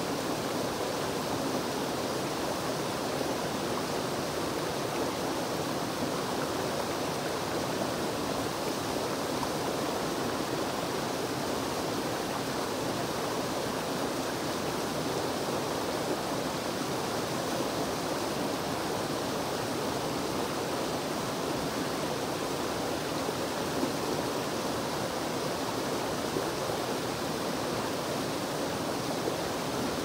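Mountain creek running over a small rocky cascade: a steady, unbroken rush of water.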